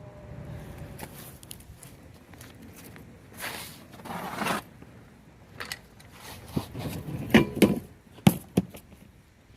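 Garage handling noises: two scraping swells, then a run of sharp metal clanks and knocks, from a floor jack and jack stands being moved under a car.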